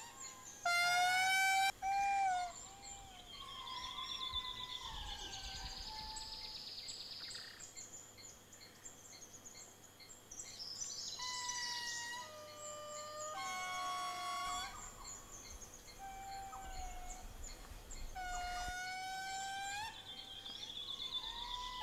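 Black-and-white lemurs giving loud, siren-like wailing calls that rise and fall in pitch: one about a second in, several voices overlapping in the middle, and another near the end. Faint bird chirps and whistles sound between the calls.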